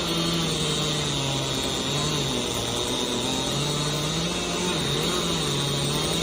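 Chainsaw engine running steadily at high speed, its pitch repeatedly sagging and recovering as it works through wood.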